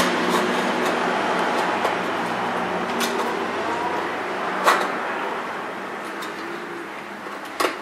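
A few sharp clicks and taps as wires are fitted into the terminals of a Paradox ZX8SP expander circuit board, over a steady room hiss with a low hum that fades out a couple of seconds in.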